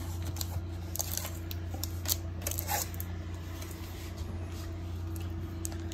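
Hands handling cardboard box inserts and a plastic-wrapped pack of card sleeves, making a few light rustles and taps over a steady low hum.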